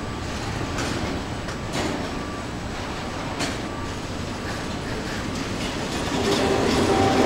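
Double-stack intermodal container train rolling past close by: a steady rumble of the well cars with sharp wheel clicks every second or so. About six seconds in, a louder steady sound of several pitches joins it.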